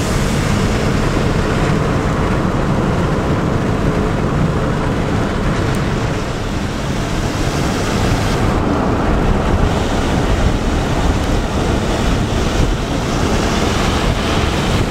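Strong gusty storm wind buffeting the microphone, a loud steady rush that swells and eases a little. It cuts off abruptly at the end.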